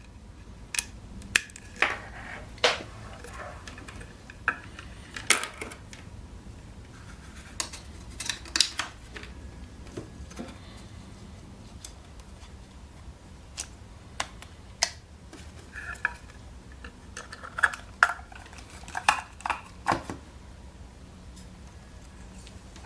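Irregular small clicks, taps and knocks from hands handling a small homemade electronic display stand, its USB power cable and switches, over a faint steady low hum.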